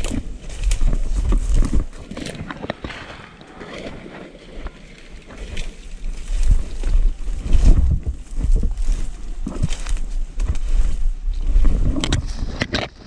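A hunter moving on foot through brush, with irregular crackling and rustling steps and heavy low rumble from wind or handling on a body-worn microphone.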